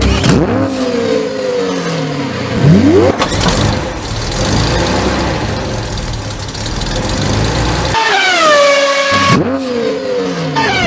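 Dubbed-in car engine sound effect, laid over a pullback toy car: the engine revs several times, its pitch sweeping sharply up and dropping back, with a held engine note about eight seconds in that winds down.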